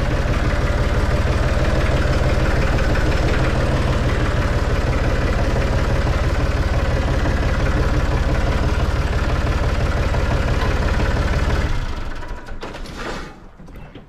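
Tractor engine running steadily and close by as the tractor is driven, with an even, rapid firing pulse. It cuts off about twelve seconds in.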